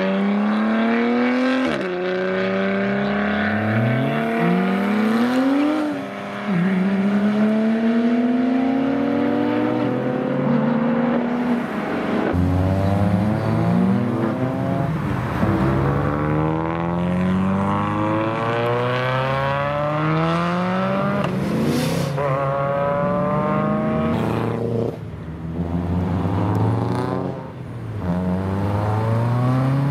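Several performance cars accelerating hard away one after another, engines revving up through the gears with a drop in pitch at each shift: a BMW M4 CS's twin-turbo straight-six first, a Hyundai i30 N's turbo four in the middle, and a Subaru Impreza WRX STI's turbo boxer four near the end.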